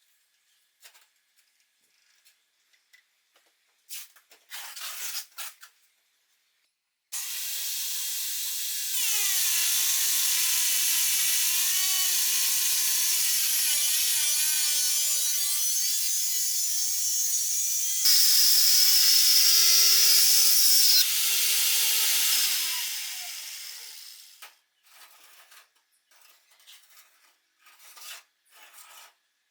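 Angle grinder switched on suddenly, its whine dropping in pitch and growing louder as it bites into wood, running for about fifteen seconds with a louder, harsher stretch near the end before winding down with a falling pitch. Light clicks and knocks of handling wood come before and after.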